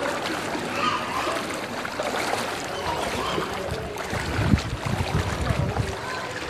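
Floodwater sloshing and splashing as someone wades through a flooded street, with heavier low sloshes between about four and six seconds in.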